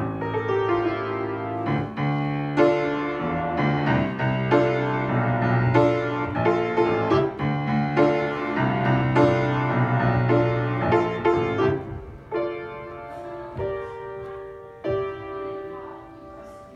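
Grand piano played solo: a steady flow of notes over held bass notes, thinning after about twelve seconds to sparse, quieter chords and single notes as the piece draws to its close.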